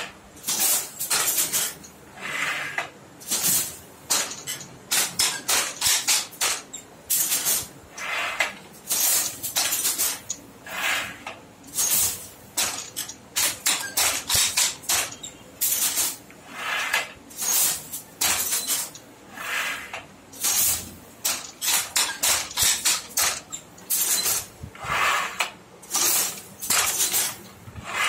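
Handloom with a korvai border-turning attachment being woven on: rhythmic wooden and metal clacking of the shuttle and the beating batten, a cluster of sharp knocks about once a second.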